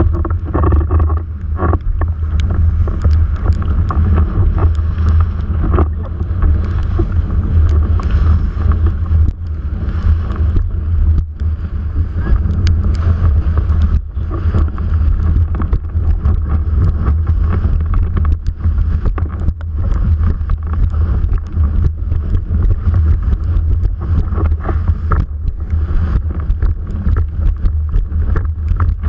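Wind buffeting a GoPro in its housing on a windsurf sail's mast while the board planes at speed: a loud, steady low rumble with a rushing water hiss from the board's spray and scattered small ticks.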